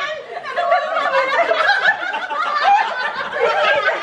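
A group of people laughing together, several voices overlapping.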